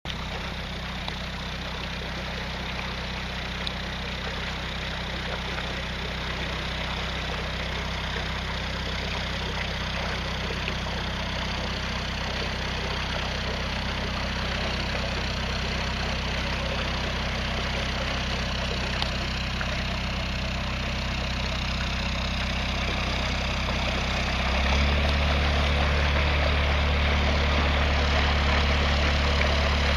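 Narrowboat's inboard diesel engine running slowly with a steady low hum. About 25 seconds in the hum steps up suddenly and gets louder, as the throttle is opened or the stern comes closer.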